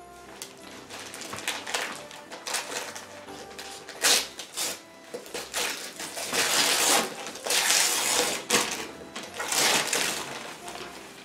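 Christmas wrapping paper torn and crumpled by hand in a run of rustling rips. The longest and loudest tears come from about six seconds in to near the end.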